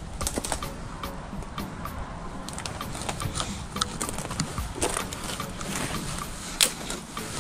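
Footsteps through dry leaf litter and twigs: irregular crunches and snaps, with one sharper snap near the end.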